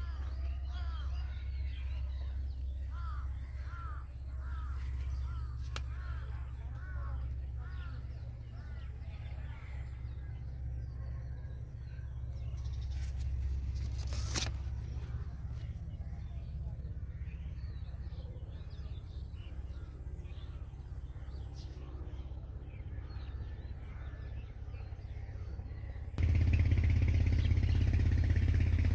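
Crows cawing again and again through the first several seconds over a steady low rumble, with a single sharp click about halfway. Near the end a louder rumbling noise cuts in abruptly.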